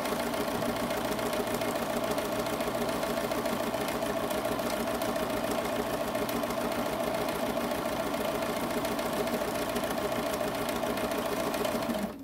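Bernina sewing machine running steadily at speed, free-motion stitching, and stopping suddenly near the end.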